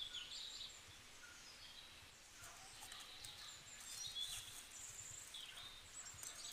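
Faint outdoor bird chirping, short high calls repeating throughout, with a light rustle now and then.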